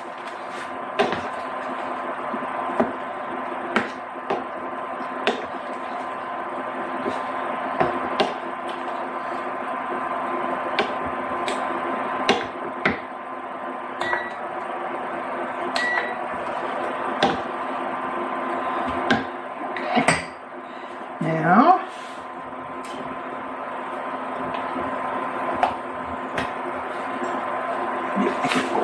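Silicone spatula stirring a simmering cream sauce in a skillet, clicking against the pan every second or so. Under it runs a steady electric hum from the induction cooktop, and a short rising sound comes about two-thirds of the way through.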